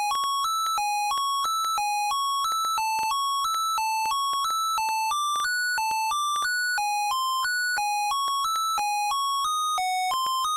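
Zetafone LT-600 phone ringtone: a repeating single-line electronic melody of short, detached beeping notes, about three a second.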